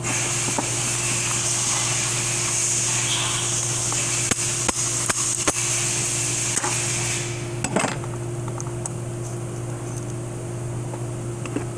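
Sharp metallic taps and knocks of a bushing puller working a bushing out of a 4L60E transmission case: four quick strikes starting about four seconds in, then two more near six and a half and eight seconds. A steady hum and hiss run underneath, and the hiss stops about seven seconds in.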